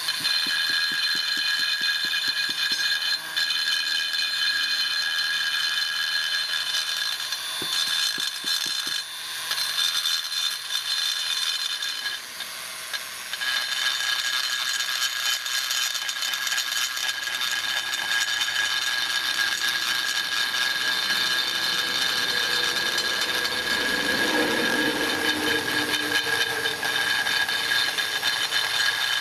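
High-speed rotary tool with a carbide burr whining steadily as it grinds cured JB Weld epoxy filler in an aluminium two-stroke engine case's transfer port, shaping the filler to direct flow. The whine dips briefly about halfway through, then resumes.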